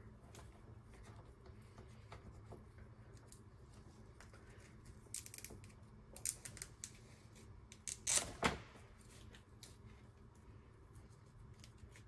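Faint rustling and small clicks of a self-wrapping wire loom sleeve being worked around a bundle of wires by hand, with a few louder handling noises about five and eight seconds in.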